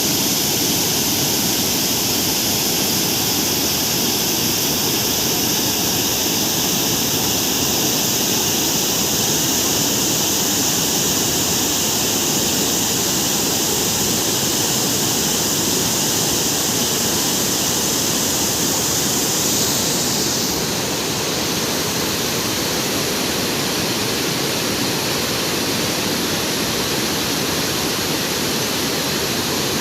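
Steady rain falling, an even hiss with no distinct drops or pauses. About two-thirds of the way through, the hiss becomes slightly duller and a little quieter.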